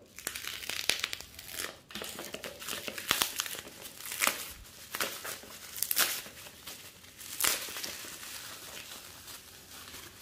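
Clear plastic wrap being slit and peeled off a cardboard smartwatch box, crinkling and crackling unevenly, with some tearing.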